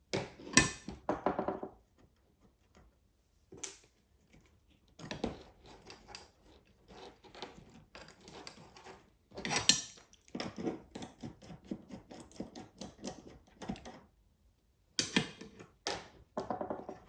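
Clicks, taps and small rattles of hand work on a Honda CBX1000Z instrument cluster as the wire leads are taken off the voltmeter's terminal posts. They come in several short bursts with brief pauses between.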